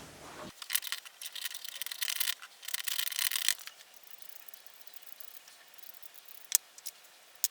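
All-purpose grease being rubbed onto the metal gears of an X2 mini mill gearbox: quick rubbing and scraping strokes that die down after about three and a half seconds, then two short clicks near the end.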